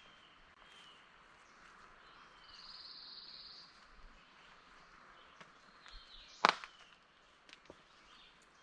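Quiet woodland ambience with scattered bird chirps and a short, rapid high trill a couple of seconds in. About six and a half seconds in there is a single sharp click or knock, much louder than the rest.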